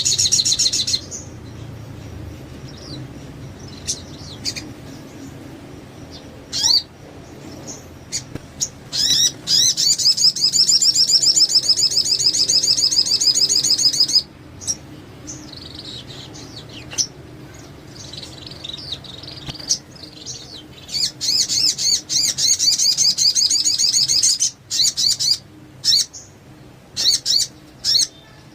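Sogon songbird singing a fast, high chattering song. It comes in two long runs, from about 9 to 14 seconds and again from about 21 to 24 seconds, with short separate calls in between.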